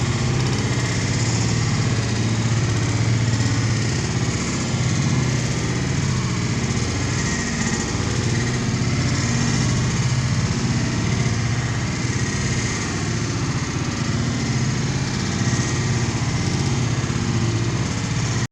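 An engine running steadily at constant speed, with a strong low hum and no revving.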